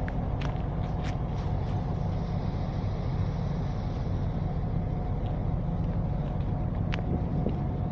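MÁV M61 'Nohab' diesel locomotive idling at a standstill, its two-stroke V16 EMD 567 engine giving a steady low drone with a faint higher hum. A few faint clicks are heard over it.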